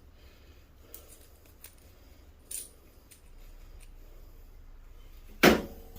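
A few faint clicks of loose metal screws being picked up and handled, then a single sharp knock near the end.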